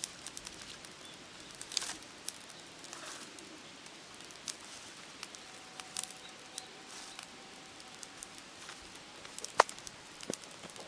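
Scattered light clicks and crackles, with one sharper click a little before the end. A faint steady tone holds for a few seconds in the middle.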